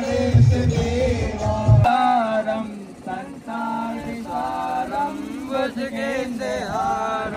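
Amplified DJ music with a heavy bass beat and singing, cut off abruptly about two seconds in. After that come sung chanting voices in long held notes with no beat.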